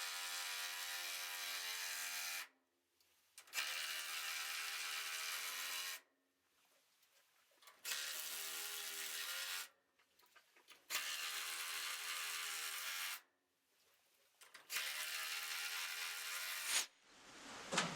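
Cordless drill driving screws in five runs of two to four seconds each at a steady whirring pitch, with short silent gaps between runs.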